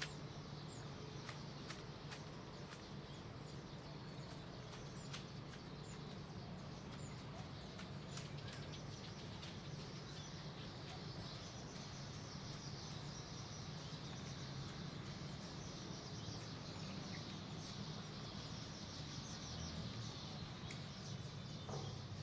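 Outdoor garden ambience: birds chirping faintly over a steady low background rumble, with scattered soft ticks near the start.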